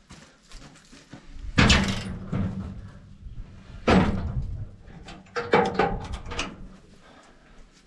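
Heavy knocks and clatter over a low steady hum: two loud bangs about two seconds apart, then a quicker run of knocks and rattling.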